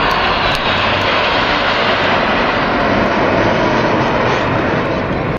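Formation of fighter jets flying past overhead: loud, steady jet engine noise that cuts off abruptly at the end.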